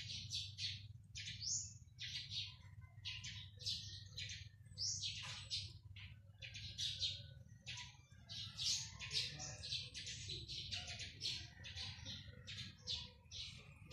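Small birds chirping: a dense, continuous run of short high chirps, several a second, some gliding up or down, over a low steady hum.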